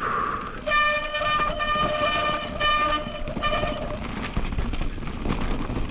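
Mountain bike disc brakes squealing with a steady high-pitched tone that cuts in and out several times over about three seconds, while the bike rolls down a steep snowy rocky descent with rattling tyre noise.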